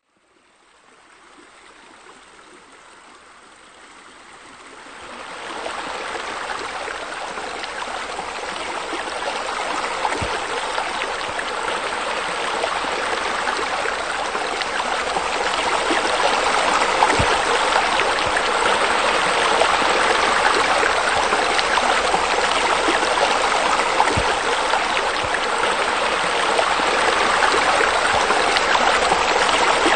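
Water splashing and trickling steadily, as from pool fountain jets and a spa spillway falling into the pool. It fades in from silence, grows louder about five seconds in, then keeps rising slowly.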